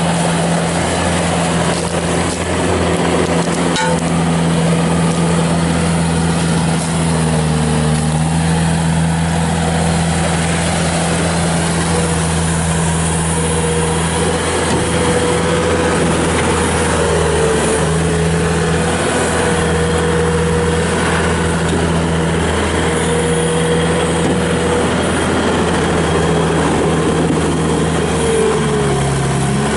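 Bobcat S330 skid steer loader's diesel engine running steadily, with a higher whine over it that wavers slightly in pitch.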